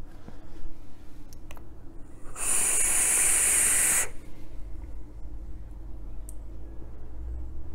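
A vape draw on a Tsunami dripper with 0.5-ohm coils firing at 50 watts: a steady hiss of air and sizzling coil for nearly two seconds, cutting off sharply, followed by a soft, low breath out.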